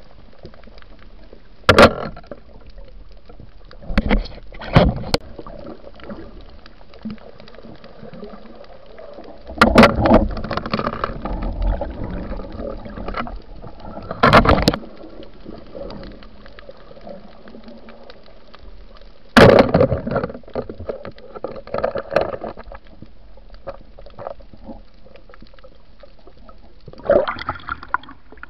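Water heard underwater, muffled, with a steady low wash broken by several sudden loud bursts of bubbling and splashing.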